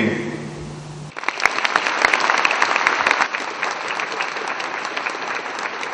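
Audience applauding, a dense patter of many hands clapping that starts abruptly about a second in after a short lull.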